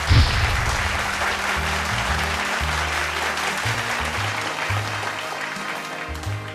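Studio audience applauding over upbeat background music with a walking bass line. The applause starts suddenly and dies away near the end.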